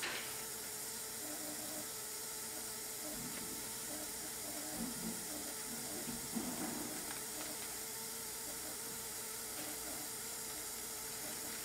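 Steady hiss of CO2 gas escaping as a foil multi-layer sample bag is pressed empty. Faint crinkling of the bag's foil comes through a few times, about midway.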